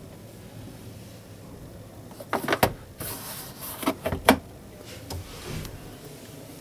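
Dacia Duster's plastic glovebox lid being pushed shut and latched: a cluster of clacks about two and a half seconds in, a short scraping rustle, then more latch clicks around four seconds in.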